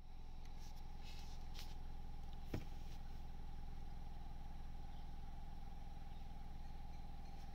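Quiet, steady low hum of an idling vehicle engine with a faint steady whine above it, and a single sharp click about two and a half seconds in.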